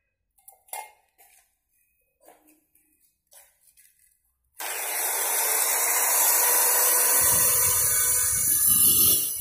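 A few light handling clicks, then an electric angle grinder starts abruptly about halfway in and runs loud with a dense, hissing whine. A deeper rumble joins near the end as the disc grinds against the steel tube of a bicycle frame, and the sound drops off right at the end.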